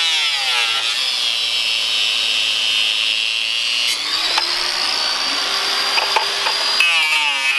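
Angle grinder with a cutting disc running and cutting through a plastic 5-gallon bucket: a steady high whine whose pitch drops and climbs back a few times as the disc bites into the plastic.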